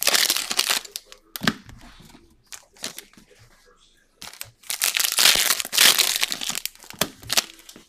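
Foil trading-card pack wrappers crinkling and tearing as they are ripped open by hand, in two long bursts, the second starting about four seconds in. A short dull knock about a second and a half in.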